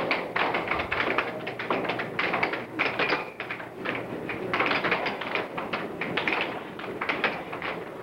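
Air hockey puck clacking against the mallets and the table's rails during play: many quick, sharp taps coming in clusters.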